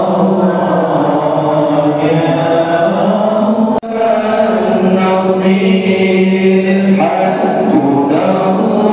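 A group of men chanting Islamic devotional verses in unison through microphones, long held notes moving from pitch to pitch. The chant breaks off for an instant just under four seconds in, then carries on.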